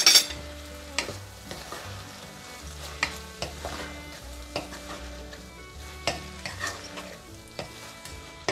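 Wooden spoon stirring shredded chicken and diced vegetables in a pot, with irregular scrapes and knocks against the pot and a sharp knock right at the start, over a faint steady sizzle from the pan.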